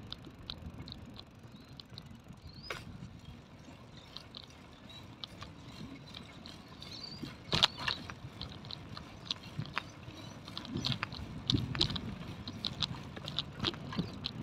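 Bicycle rolling along a concrete footpath: a low tyre rumble with irregular clicks and rattles, and one sharp knock about halfway through.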